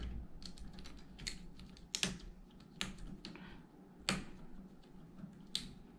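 Plastic twist-on wire nut being screwed by hand onto three twisted black copper wires: irregular small clicks and scrapes of plastic on wire, the sharpest about two and four seconds in.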